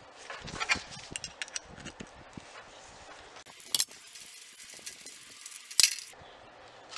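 Small metal clicks and clinks from a Tecumseh carburetor's bowl retention nut and fuel bowl being unscrewed by hand over a metal drip tray. There is a quick run of light clicks at first, then two sharper single clicks, one near the middle and one near the end.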